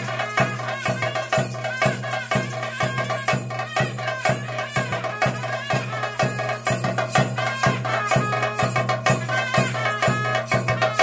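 Traditional theyyam accompaniment music: evenly spaced drum strokes, about three a second, with a rattling shimmer, and a wavering melody over a steady low drone.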